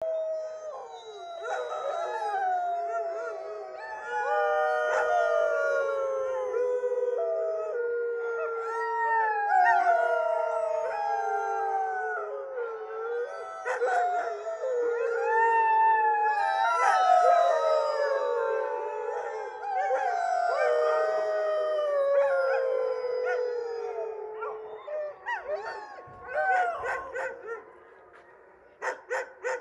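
A chorus of many huskies howling together, long overlapping howls that mostly fall in pitch. The chorus thins out and fades in the last few seconds, and a few short sharp calls come near the end.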